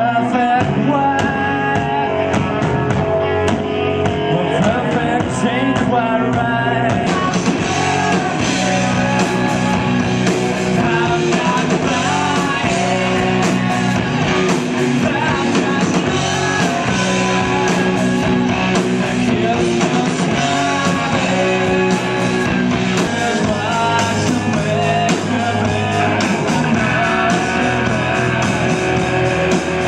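Live rock band playing electric guitars, bass and drums, with a male lead vocal. The sound gets brighter and fuller about seven seconds in.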